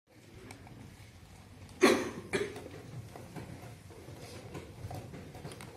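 Two sharp clacks about half a second apart, about two seconds in, from the opening moves of a blitz chess game: plastic chess pieces set down on the board and the chess clock's button pressed. Faint small taps follow.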